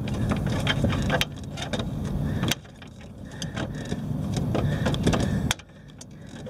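Close rubbing and rustling of hands working next to the microphone, with a few sharp metallic clicks, as a bolt at the fork is worked by hand to start its thread. The noise drops off suddenly twice.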